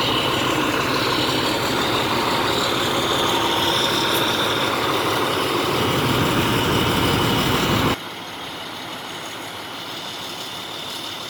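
Fire truck's diesel engine idling steadily. About eight seconds in, the sound drops suddenly to a quieter, steady idle.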